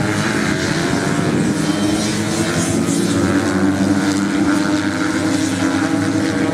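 Several motocross bikes racing on a sand track, their engines running hard together in a steady, overlapping drone of engine notes.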